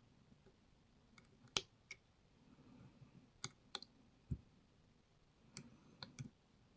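Faint, scattered metallic clicks and taps of lock picking tools working inside a Lockwood MT5 lock, probing its alpha pin, which gives a little core movement. About eight separate clicks at irregular intervals, one lower knock about halfway through.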